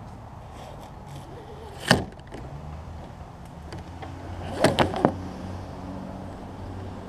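Sea-Lect TruCourse kayak rudder blade being swung up and down on its deploy line as it is tried out: one sharp clack about two seconds in, then a quick run of three clacks around five seconds in as the blade knocks into position.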